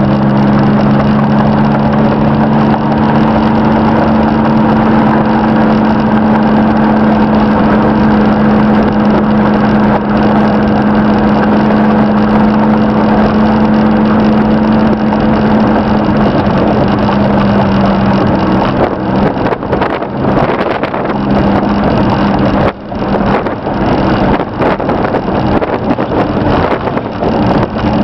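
Engine and road noise of a 1992 Chevrolet S-10's 2.8-litre V6, heard from inside the cab while driving. A steady engine drone runs for about the first two-thirds. Then the engine note fades and the sound turns rougher and uneven, with a few brief dips.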